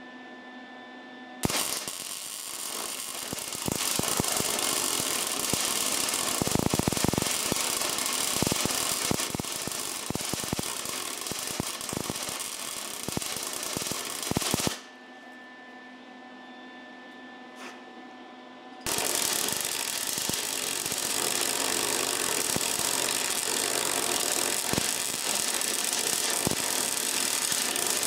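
Wire-feed (MIG) welder arc crackling and sputtering as it lays a bead on steel frame metal. The arc runs in two long stretches, stopping for about four seconds in the middle and starting again.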